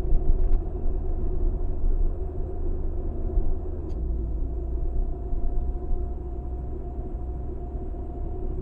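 Car interior noise while driving slowly in traffic, picked up by a dashcam's microphone: a steady low rumble of engine and road with a faint even hum over it.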